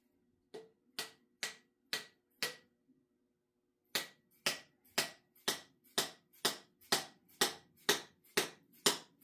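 A mallet tapping a wooden wedge into the eye of an axe head, driving it down into the handle to hang it. Five sharp strikes about half a second apart, a short pause, then a steady run of about two strikes a second.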